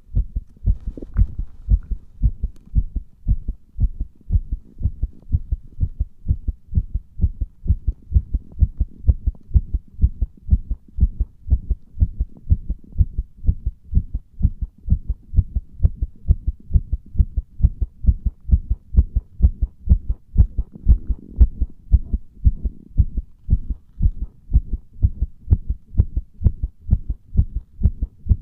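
Human heartbeat recorded with the microphone pressed against the chest: a steady, regular rhythm of low thuds.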